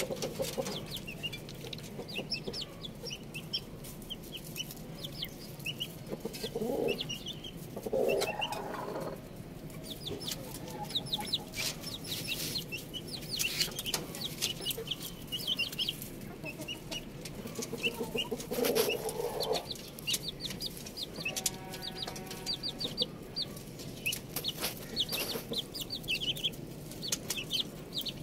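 Chicks and ducklings peeping: rapid runs of short, high cheeps throughout, with a few lower, louder calls mixed in.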